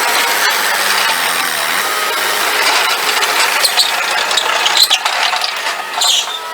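Mustang MTL25 compact track loader's diesel engine running steadily as the machine works, with the clatter and squeal of its tracks and loader, the sound sped up.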